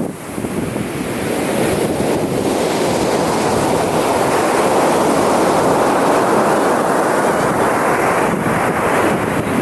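Ocean surf breaking on a beach: the wash of a wave swells over several seconds and eases off near the end, with wind buffeting the microphone.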